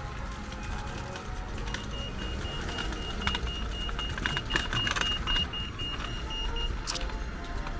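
Pedestrian crossing signal beeping: a fast, even run of short high pips that starts about two seconds in and stops about five seconds later, telling pedestrians it is safe to cross. Road traffic rumbles underneath.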